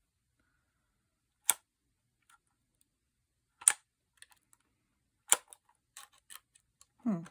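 Phomemo E975 handheld embossing label maker clacking: three sharp snaps about two seconds apart, with fainter ticks of the mechanism between the last two.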